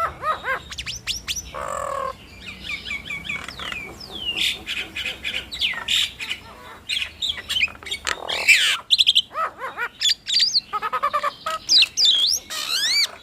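Two jalak nias starlings calling in a duet: a busy, unbroken mix of harsh squawks, chatter and whistled notes that glide up and down.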